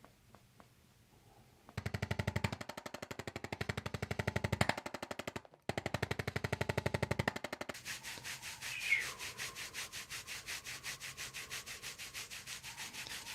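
Handheld percussive massage tool drumming on the back muscles in a fast, even rattle of many beats a second. It starts about two seconds in, stops for a moment in the middle, and turns lighter and thinner about eight seconds in.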